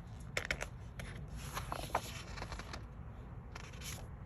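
Paper pages of a soft-cover book being handled and turned, a few short rustles and soft clicks.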